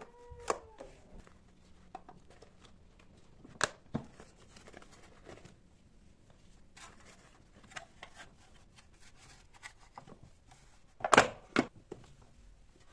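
Scattered clicks and knocks of objects being handled, in no steady rhythm, with a louder cluster of knocks about eleven seconds in.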